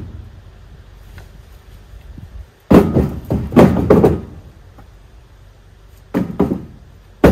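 A series of sharp knocks and thuds: a cluster of several hits about three seconds in, a shorter cluster around six seconds, and one more sharp knock at the very end.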